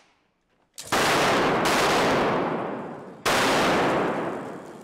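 Two blasts from a special-effects flame rig, about two and a half seconds apart. Each starts suddenly and loud, roars on for about a second, then dies away.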